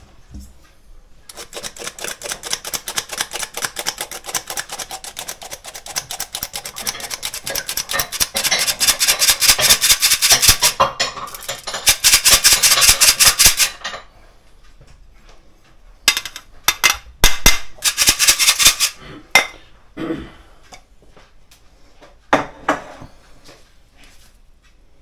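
Hand-squeeze metal flour sifter sifting flour into a stainless steel bowl: a fast, even run of rasping clicks as the handle is worked, growing louder and stopping about 14 seconds in. A few shorter bursts of the same rasping follow, then a couple of single knocks near the end.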